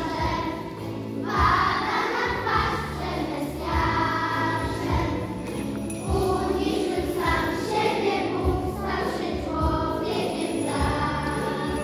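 Children's choir singing a song over instrumental accompaniment, with jingle bells ringing along.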